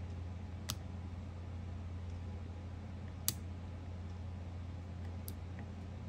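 Parts of a strong-magnet metal fidget slider clicking together as they are worked back into place: three sharp clicks, the loudest about three seconds in and a faint one near the end, over a steady low hum.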